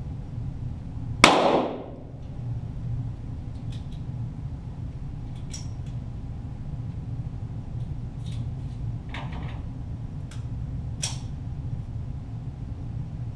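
A single .22 Walther GSP target pistol shot about a second in, heard from down range near the targets, its report ringing out briefly in the enclosed range. A few faint ticks follow over a steady low hum.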